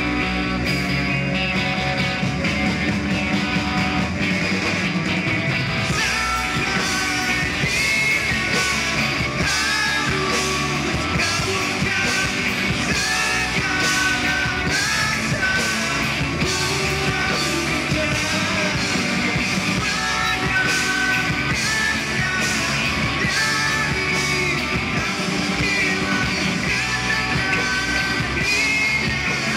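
A live rock band playing electric guitars, bass and drums, with a male vocalist singing and shouting in from about six seconds in.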